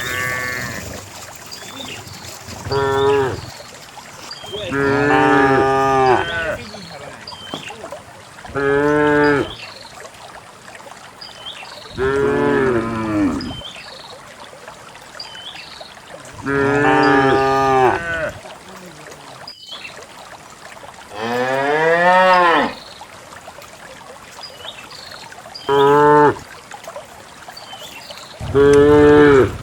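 Cows mooing again and again: about eight long calls, each one to two seconds, some sliding down in pitch and one rising.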